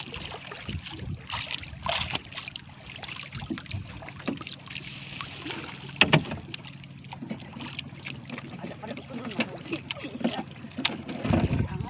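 Sea water splashing and lapping at the side of a small outrigger boat as a landing net is worked at the hull, with wind on the microphone and scattered knocks and clicks. A sharp knock, the loudest sound, comes about six seconds in. A steady low hum runs underneath and stops near the end.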